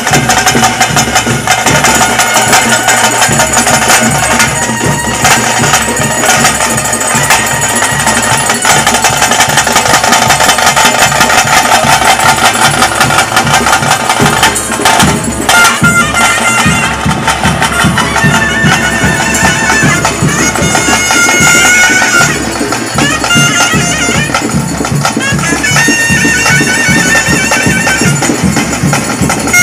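Traditional wind pipe playing an ornamented melody, with drums beating a steady rhythm underneath.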